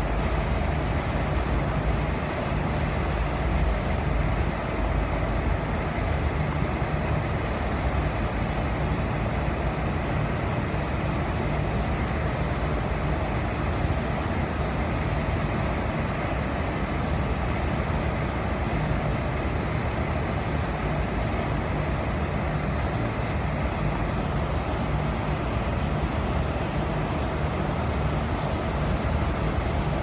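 Diesel rail engines idling, a steady low hum that holds one level throughout.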